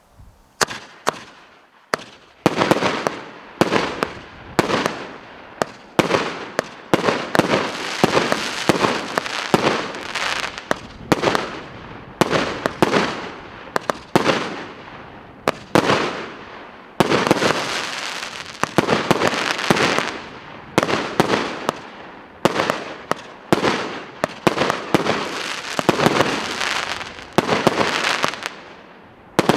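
A 25-shot, 1.5-inch consumer firework cake firing in sequence. There is a sharp report about once a second, each followed by a burst and a fading noisy tail.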